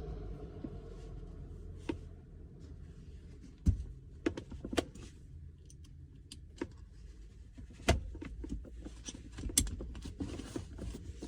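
Scattered clicks and knocks of a manual gear shifter being fitted and secured in a car's centre console, with about half a dozen sharp knocks standing out.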